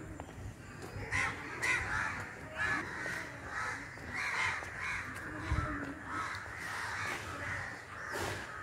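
Crows cawing, many calls in a row starting about a second in.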